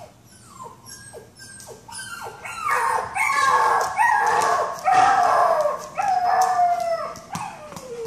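Recorded puppy crying played through speakers: a string of short, high whimpers that fall in pitch, growing into louder, longer wailing cries about two and a half seconds in.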